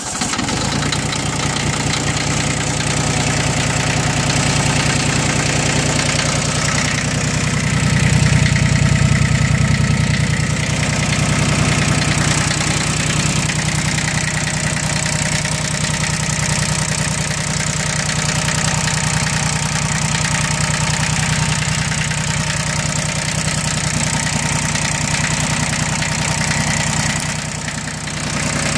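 Yanmar YM1602's three-cylinder diesel engine, just started, idling steadily. It gets a little louder for a couple of seconds about eight seconds in.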